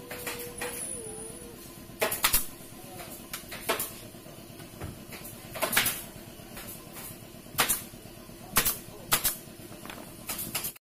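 Pneumatic staple gun firing single shots every second or two, driving staples through the foam seat pad into the wooden sofa frame.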